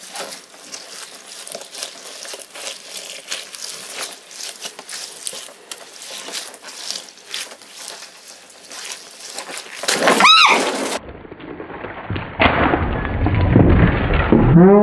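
Hands squeezing a large balloon packed with water beads (Orbeez), giving a dense, quiet crackling and squishing. About ten seconds in there is a brief high squeak, then the balloon bursts and the beads pour out in a louder rush of noise, with a low, drawn-out pitched sound near the end.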